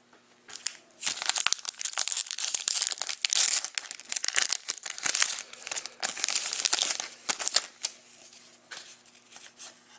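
Foil wrapper of a 2013-14 Upper Deck SP Authentic hockey card pack crinkling and tearing as it is ripped open by hand, dying down to a few soft clicks near the end.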